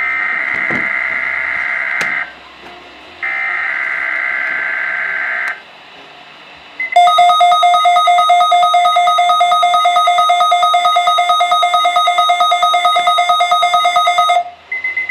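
Weather radio alert signalling for Weather Radio Canada's required monthly test: two raspy, warbling digital data bursts of about two seconds each, the SAME header, then about seven seconds of a loud, rapidly pulsing electronic alert tone that stops shortly before the end.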